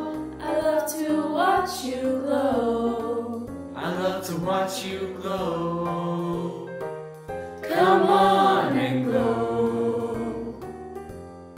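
Vocal ensemble singing in harmony, several voice parts at once in short phrases, growing softer near the end.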